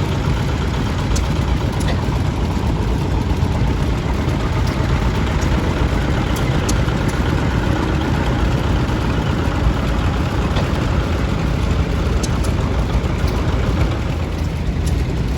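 Antique farm tractor engines running steadily as tractors drive slowly past.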